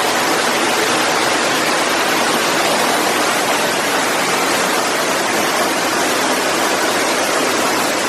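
Waterfall: a steady, unbroken rush of falling water close by.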